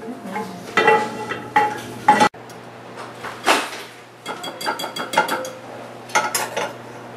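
Metal spoon and kitchen utensils clinking against a frying pan, muffin tins and a mixing bowl: a run of separate clinks and knocks, some with a short metallic ring, broken off abruptly about a third of the way in before more clinks follow.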